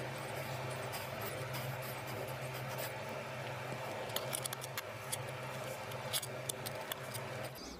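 Steady low hum and hiss of an indoor recording, with scattered light clicks and taps from about four seconds in. The hum cuts off just before the end.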